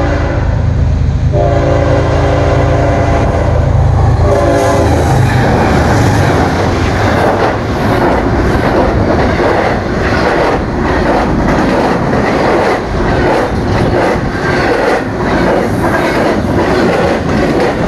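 Fast intermodal freight train at about 70 mph. Its locomotive horn sounds one long blast and then a short one about four seconds in, over the deep engine rumble. The double-stack container cars then rush close past, with a rapid clatter of wheels on the rails and a strong rush of wind.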